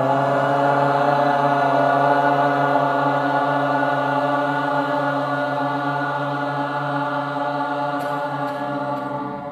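A man's voice chanting the mantra syllable 'Ram' as one long note held on a steady pitch for about nine seconds, slowly fading toward the end, over a steady low drone.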